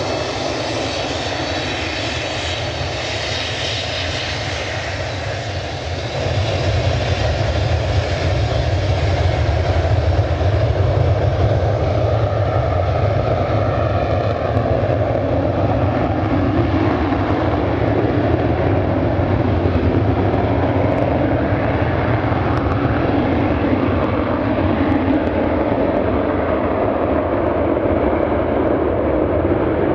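Boeing 737-200's Pratt & Whitney JT8D low-bypass turbofans at take-off thrust during the take-off roll on a wet runway. The sound grows louder about six seconds in as the jet passes, then the high whine fades as it moves away.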